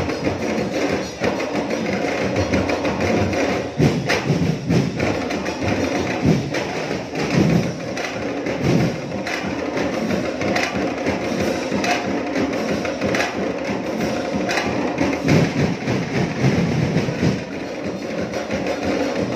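Drum and percussion ensemble playing a continuous rhythm of dense, rapid strikes, the percussion music of a Dinagyang tribe performance.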